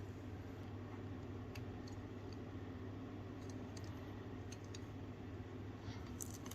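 A few faint, scattered keystroke clicks from an Akko MOD007 mechanical keyboard with MMD Ice Cream POM switches, irregularly spaced, with a small cluster near the end, over a steady low hum.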